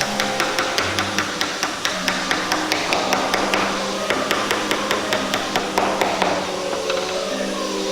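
Rapid hammer strikes, about five a second, over a steady hiss, stopping about six seconds in; background music continues underneath.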